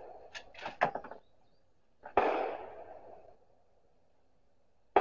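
A single 6.5 Creedmoor rifle shot from the bench about two seconds in: a sharp report with a tail that dies away over about a second. A few light clicks come before it.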